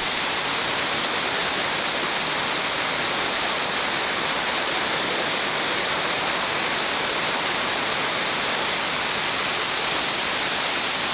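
Waterfall of about twenty feet and its creek cascading over rocks, flowing well after days of heavy rain: a steady, even rushing of water.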